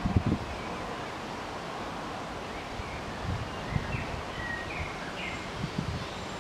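Steady outdoor background hiss with faint short bird chirps in the middle, and a few low thumps, the loudest right at the start.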